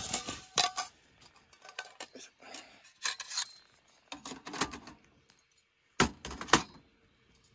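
Stainless steel folding fire pit being assembled: a metal plate and then a wire grill grate are set into the bowl, clinking and clattering metal on metal, with two loud clanks about six seconds in as the grate goes down.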